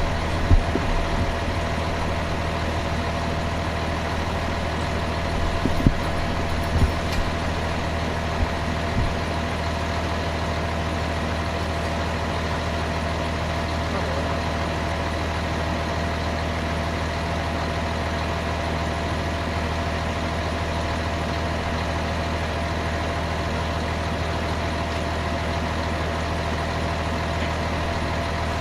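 Steady mechanical hum, engine-like, with a few short knocks and clanks in the first ten seconds.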